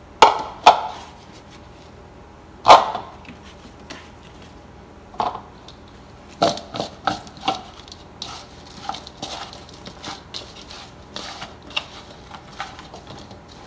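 Raw potato wedges being handled between a bowl and a metal sheet pan: a run of sharp knocks and clatters, the loudest about three seconds in, then lighter taps and scrapes.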